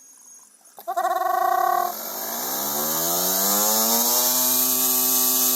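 Nissan Leaf electric AC compressor driven by a motor controller: a click about a second in, a steady high electric whine for about a second, then the motor's whine rises in pitch as the compressor spins up and settles into a steady pitch.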